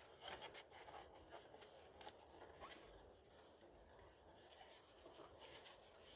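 Faint rustling and scattered light clicks of parts and packaging being handled, with a small cluster of clicks near the start and another near the end.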